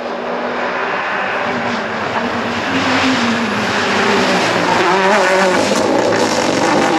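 Mini Countryman JCW rally car's engine approaching and passing, growing louder as it comes near, its pitch rising and falling as the driver works the throttle through the corner.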